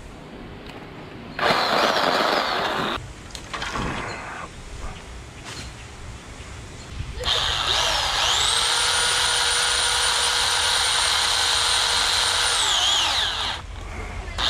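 Portland electric pole saw cutting a branch. It runs briefly about a second and a half in, then from about seven seconds its motor winds up to a steady high whine and winds down near the end.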